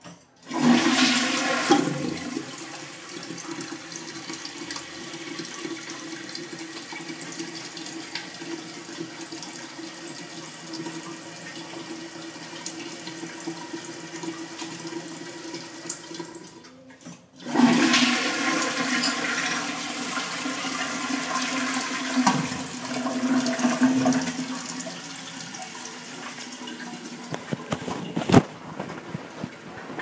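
Old gravity-flush toilet flushed twice, each time a loud rush of water draining from the tank. The ballcock fill valve then refills the tank with a steady hiss and a held tone. A sharp click sounds near the end.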